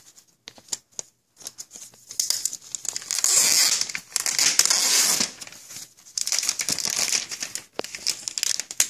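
Clear plastic packaging film crinkling as it is handled and pulled off a new tablet, in two long spells after a few light taps near the start.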